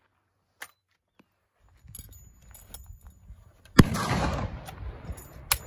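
Metallic clicks and clacks of a Peabody falling-block rifle's action being worked by hand, the loudest a sharp clack about two-thirds of the way through, followed by a brief rush of noise and one more sharp click near the end.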